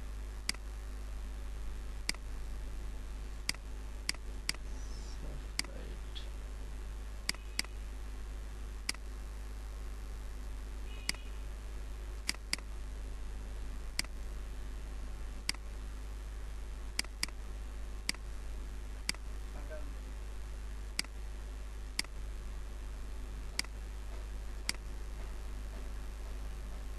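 Computer mouse clicking, single clicks at irregular intervals about one to two seconds apart, over a steady low hum.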